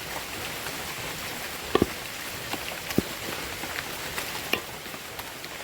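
Steady rain falling, an even hiss, with two sharp knocks a little over a second apart near the middle.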